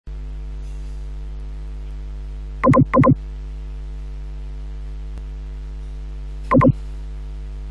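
Steady electrical mains hum with a buzzing row of overtones, broken twice by a pair of short, loud beeps, about three seconds in and again about six and a half seconds in.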